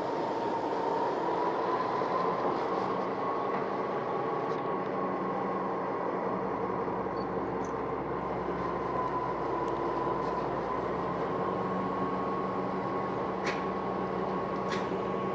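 DB class 364 (V 60) diesel shunting locomotive running steadily, its engine sound carrying a steady whine that drifts slightly in pitch, with a couple of faint clicks near the end.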